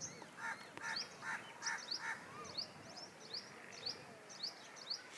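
A peafowl giving a quick run of five short honking calls, about two or three a second, in the first two seconds. A small bird chirps throughout with short, high, upward-sliding notes a few times a second.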